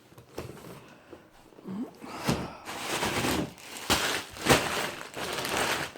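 Gift wrapping paper being torn and crumpled as a present is unwrapped: faint at first, then rustling with several sharp rips from about two seconds in.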